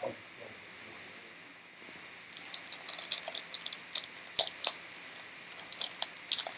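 Trading cards and their pack being handled: a quiet start, then from about two seconds in a quick run of crisp clicks and rustles as cards are slid and flicked through.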